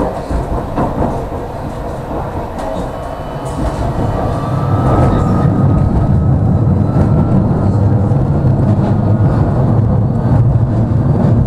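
Ride noise heard from inside a moving tram: wheels running on the rails with a low rumble, which gets louder about four seconds in and then stays steady. A faint whine rises in pitch partway through.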